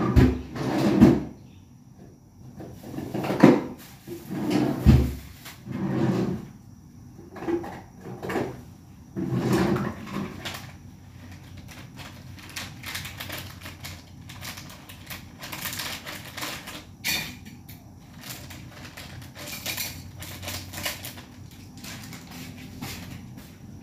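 Kitchen handling sounds: a run of knocks and bumps from containers and cupboard doors being moved, then lighter clicks and rustling in the second half.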